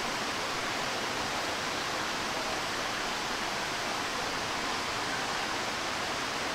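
Steady rush of a stream cascading over a sloping rock slab.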